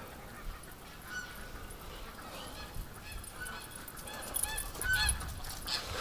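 Geese honking, a series of short calls that come more often and a little louder toward the end.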